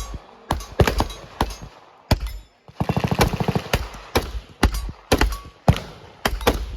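Gunfire on a shooting range: single shots from several guns at uneven intervals, with a rapid burst of automatic fire about three seconds in.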